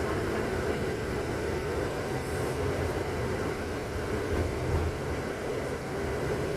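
Steady low rumble of a moving vehicle running without a break.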